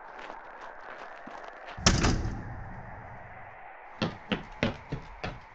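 Hurried footsteps, then a heavy door slams shut about two seconds in, its low rumble dying away; footsteps start again near the end.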